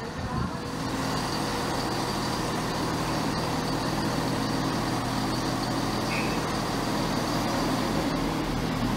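Scotrail Class 158 diesel multiple unit running into the platform, its diesel engines droning steadily as it approaches.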